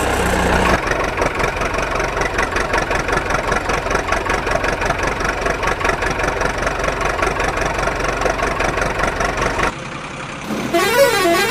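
A truck engine running steadily at idle with a rapid, even knock. Near the end it stops and a short warbling tone rises and falls a few times.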